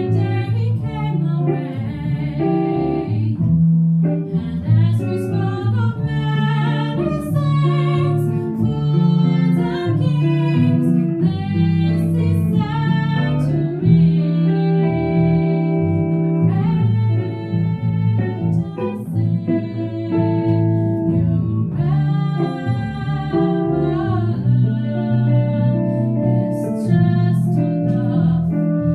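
Small jazz ensemble playing: a singer holding long, wavering notes over guitar and bass accompaniment.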